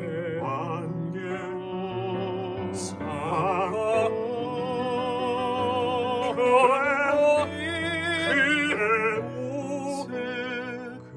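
Male pop-opera vocal group singing a slow Korean ballad in full operatic voice with wide vibrato, over a karaoke backing track; the singing swells to its loudest a little past the middle.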